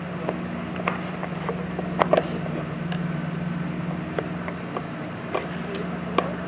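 Scattered light clicks and taps as a toddler handles and fiddles with a broken whirl-round toy, with two sharper clicks about two seconds in, over a steady low hum.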